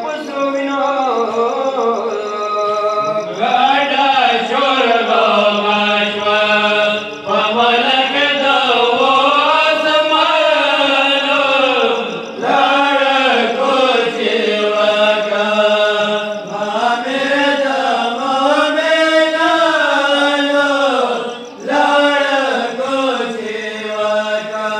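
Pashto noha, a mourning lament for Imam Ali, chanted by a reciter in long rising-and-falling melodic phrases several seconds each, over a steady low tone.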